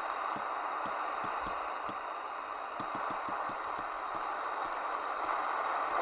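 Midland Alan 8001 CB radio receiving an empty channel: a steady hiss of static with irregular sharp clicks of crackle, as from interference between transmissions.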